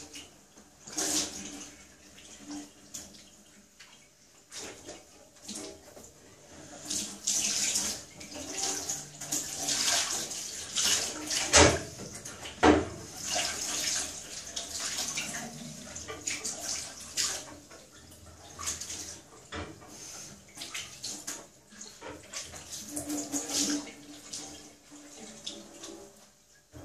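Water splashing and swishing in a stainless-steel kitchen sink as an enamelled cooking pot is scrubbed out with a towel, in irregular surges. Two sharp knocks about halfway through.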